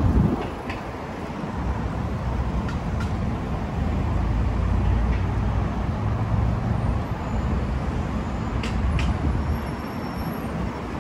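Road traffic noise: a steady low rumble of car and bus engines and tyres passing on the street, heaviest in the middle and easing off towards the end, with a few light clicks near the end.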